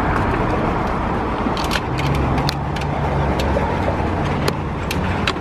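Steady noise of a vehicle engine running, with a low hum that comes in about two seconds in and a few faint clicks.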